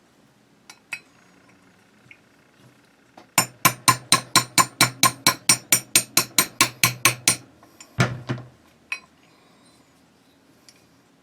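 Small hammer tapping a pin punch in quick, even strikes, about five a second, to drive the sear roll pin out of a rifle's trigger housing, then one heavier blow and a last lighter tap. A few small metal clicks come before the tapping.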